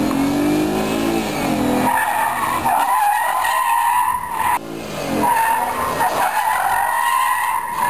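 Mercedes-Benz E350's V6 engine revving for about the first two seconds, then its tyres squealing in a long wavering whine under hard braking and swerving. The squeal breaks off about halfway through and starts again a moment later.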